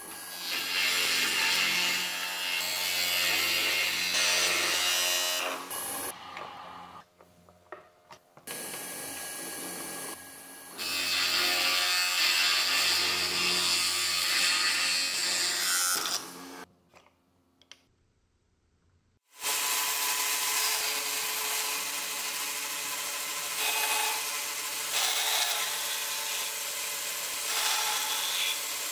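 A drill press spinning a small sanding drum against the edges of plywood pieces, running steadily in two long stretches. After a short silence, a bandsaw runs and cuts through stacked plywood.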